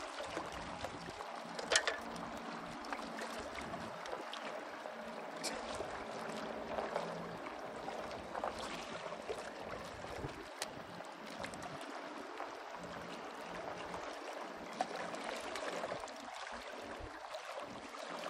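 Small lake waves lapping and trickling among shoreline rocks, a steady watery wash, with a few short clicks and knocks.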